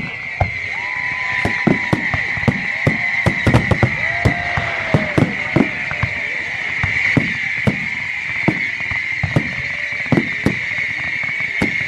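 Fireworks display: sharp bangs and pops going off at irregular intervals, often several a second, over a steady high hiss.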